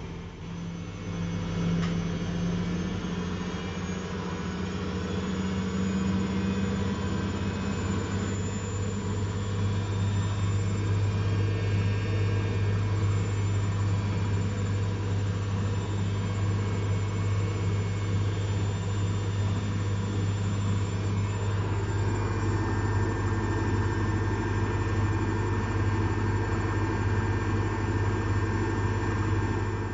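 Zanussi Jetsystem Turbodry ZWD 1000 washer-dryer running at speed: a steady motor hum and whine that builds and rises in pitch over the first few seconds, then holds. It cuts off abruptly at the very end.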